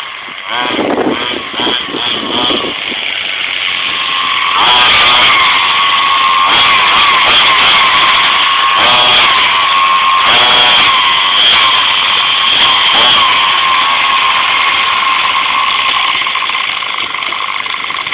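HPI Baja 5B 1/5-scale RC buggy's small two-stroke petrol engine: a few short throttle blips, then running hard at high revs from about four seconds in, the pitch rising and dipping again and again.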